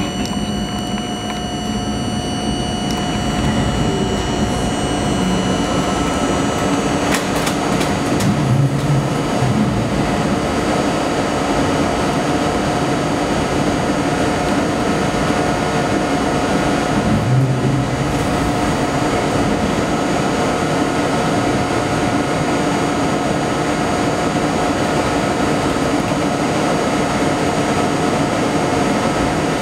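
Budd R32 subway train running slowly along a station platform, heard from the front window: a steady hum of motors and wheels on rail, with steady tones. A few sharp clicks come about seven seconds in.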